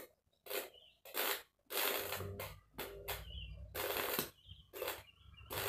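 A welding rod held in pliers sparking against metal, fed by a homemade welder made from a 5-amp transformer at 57 volts: a string of crackling, sputtering arc bursts, with a low hum underneath from about two seconds in. The arc only spatters like fireworks and never holds, so the weld won't stick.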